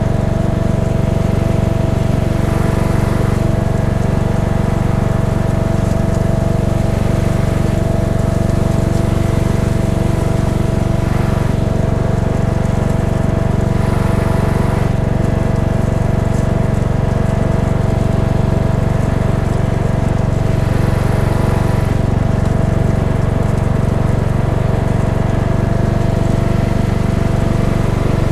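Cub Cadet XT1 riding mower engine running steadily at an even speed while it tows a dethatcher across the lawn.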